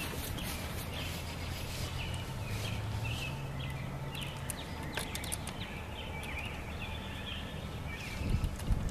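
Birds chirping with short, repeated notes over a steady low outdoor rumble. A few light clicks are heard, and the rumble grows louder near the end.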